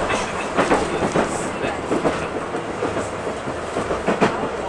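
A streetcar running along its track, heard from inside the car: a steady rolling rumble with a series of irregular clicks and knocks as the wheels pass over rail joints.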